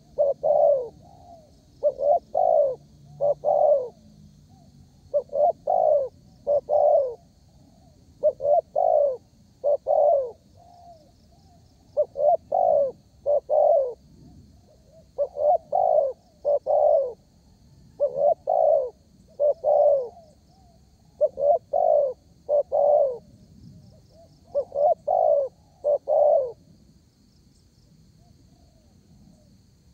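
Spotted dove cooing its song, a group of two or three low coos about every three seconds, stopping a few seconds before the end. The dove is in full, constant song, the kind of call used as a lure to set other doves calling. Faint high chirping goes on behind it.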